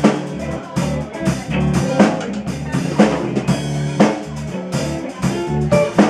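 Live band playing an original song: a drum kit keeps a steady beat with a strong hit about once a second, under electric bass and guitar.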